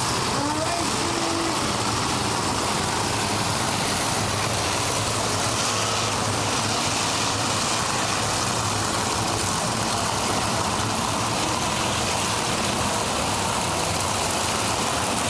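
Several monster truck engines running steadily together, a loud, unbroken engine noise.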